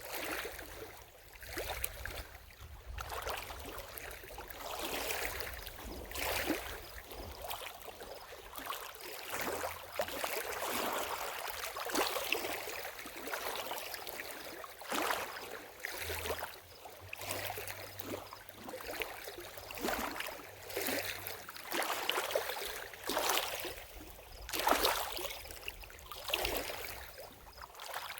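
Lake water lapping at the shore, small waves splashing every second or two, with a low rumble underneath.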